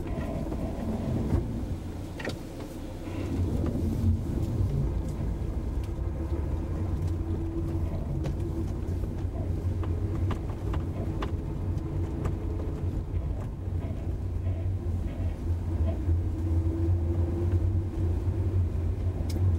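Honda S2000 on the move: a steady low drone of engine and road noise with scattered light clicks and knocks, from a car with an abnormal noise at the left rear.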